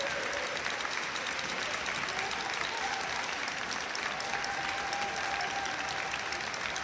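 Audience applauding steadily, many hands clapping, as a figure skater finishes her programme.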